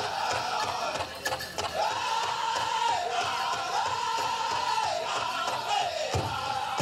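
Powwow drum group performing a chicken dance song: high-pitched voices singing together in unison over a regular drumbeat, with the sung phrase falling away near the end.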